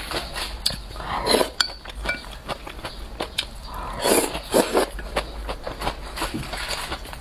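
Noodles slurped up from a bowl of sesame-paste broth, twice, about a second in and again about four seconds in, over steady wet chewing and mouth clicks. Light clinks of chopsticks against the bowl.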